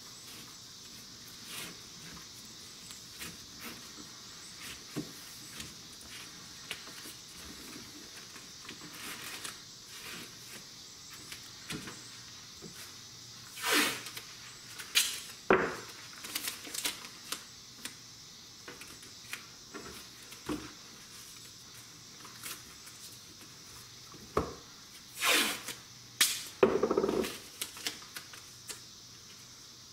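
Painter's tape being pulled off the roll and wrapped around a bundle of cardboard Roman candle tubes. A few strips of tape tear loudly about halfway through and again near the end, with light taps and handling clicks in between.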